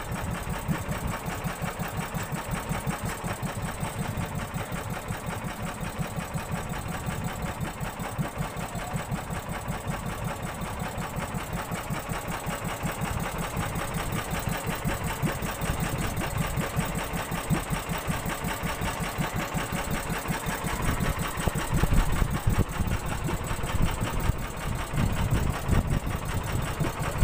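Boat engine running steadily with a fast, even beat, a little louder in the last few seconds.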